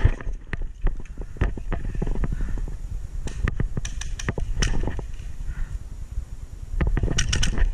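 Airsoft gunfire during play: scattered sharp shots and clacks, then a quick burst of about four shots near the end, over a low rumble.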